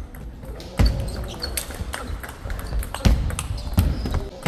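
Table tennis play in a hall: irregular sharp knocks of the ball off bats and table, some with heavier thuds, and a few short high squeaks.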